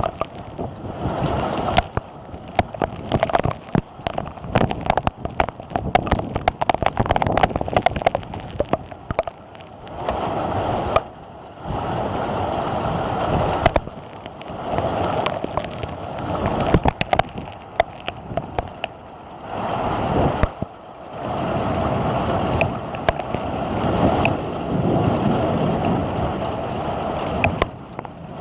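Heavy rain driven by gusting wind, the downpour swelling and easing every few seconds, with many sharp taps of drops striking close by.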